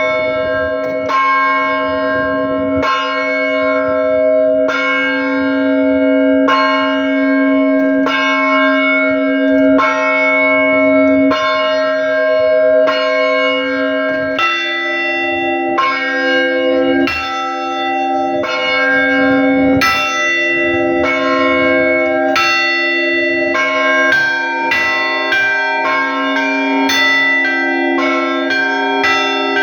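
Russian Orthodox church bells rung by a single bell ringer: strokes every second and a half or so over the lingering ring of the larger bells. The pattern grows faster and busier over the last third.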